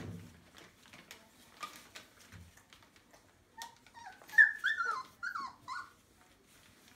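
24-day-old Entlebucher puppies whimpering, with a short run of high-pitched squeals and whines about halfway through. Light scratching and rustling of paws on newspaper bedding runs beneath.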